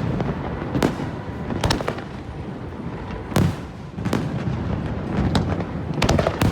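Aerial fireworks bursting in a display: a run of sharp bangs about one a second, over a continuous low rumble from shells going off further away. The loudest bang comes about halfway through, with a quick cluster of bangs near the end.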